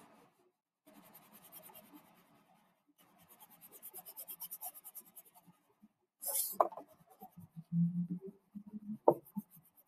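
Gray crayon rubbing on paper in quick, light back-and-forth colouring strokes, a soft rapid scratching, with a couple of louder scuffs about six and nine seconds in.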